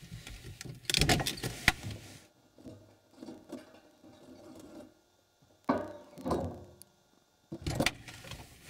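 A UAZ Patriot SUV's door being opened and shut, with knocks and rustling as someone climbs out, a sharp clunk about one and a half seconds in, faint scattered sounds through a quiet middle stretch, and more knocking and rustling near the end as he climbs back in.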